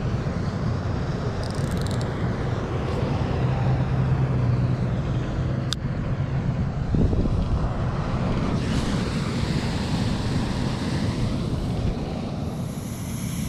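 Wind buffeting the microphone: a steady, deep rumbling noise, with one sharp click about six seconds in.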